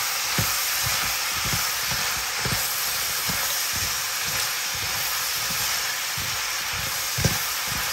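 Okra and carrots sizzling steadily in a pot of brown stew on the stove, with many short, soft knocks throughout.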